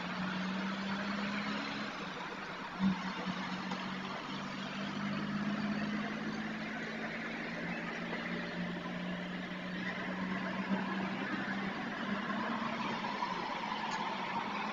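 Road traffic on a street picked up by a security camera's built-in microphone: a steady hiss of passing vehicles over a constant low hum, with one short knock about three seconds in.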